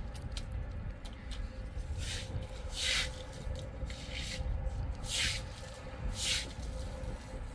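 Straw broom swishing over wet concrete in a few irregular strokes as water from a garden hose runs across the floor.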